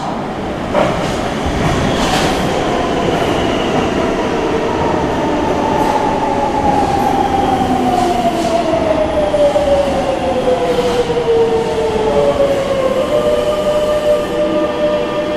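Madrid Metro Serie 9000 electric train pulling into an underground station and braking. A whine from the train falls steadily in pitch as it slows, then holds, over the rumble of the wheels, with a few sharp clicks along the way.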